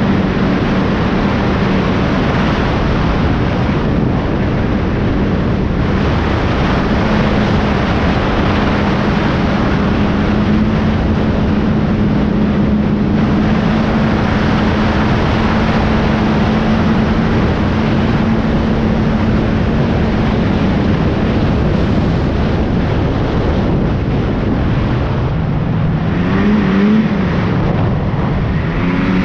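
Snowmobile engine running at a steady cruising speed under a constant rushing noise, then easing off and revving back up near the end.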